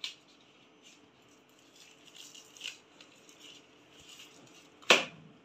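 Clear plastic packaging being handled and unwrapped by hand: soft scattered crinkles and rustles, then one sharp, louder crackle near the end.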